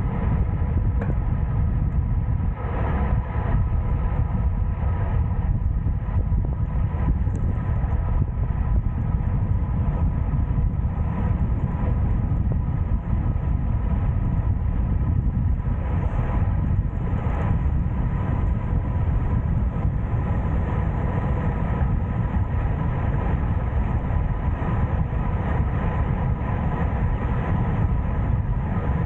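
Steady rumble of a motorcycle on the move: the engine running at an even pace under heavy wind noise on the microphone, with a faint steady whine above it.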